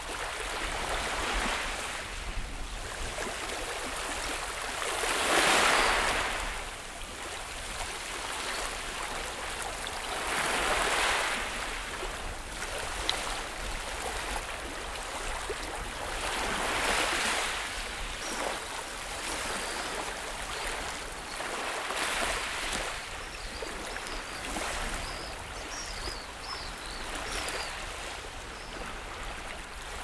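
Distant surf washing in, a steady rush that swells every five or six seconds.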